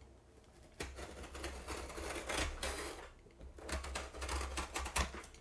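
Scissors cutting through the taped side of a cardboard shipping box, a rapid crunching click in two stretches with a short pause between, the second ending in a sharper snip.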